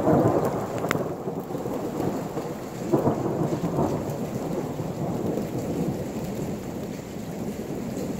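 Thunder rumbling: loudest at the start, swelling again about three seconds in, then slowly rolling away.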